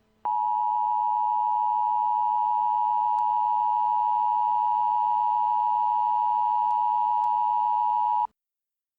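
Emergency Alert System attention signal: a loud steady electronic tone held for about eight seconds, starting sharply and cutting off suddenly, announcing a tornado warning.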